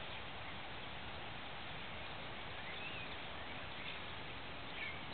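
Steady outdoor background hiss, with a few faint short chirps about a third of the way in, near the middle and near the end.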